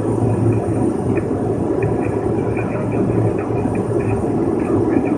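Steady drone of a small single-engine propeller airplane's engine and propeller in cruise, heard from inside the cockpit.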